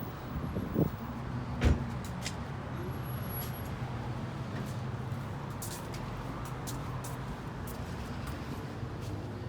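Steady low rumble of a car running, with a thump just under a second in and a louder knock a little later.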